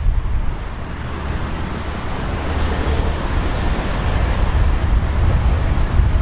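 Low, steady rumble of an approaching Hitachi diesel-electric locomotive mixed with road traffic noise, growing slowly louder.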